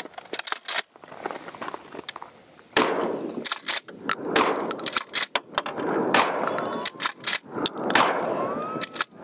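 Remington 870 12-gauge pump-action shotgun firing a series of sharp shots a second or two apart, the pump being racked between them. The loads are birdshot first, then heavier buckshot.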